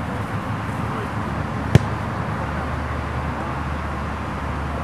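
A soccer ball kicked once, a single sharp thud about two seconds in, over a steady low background rumble.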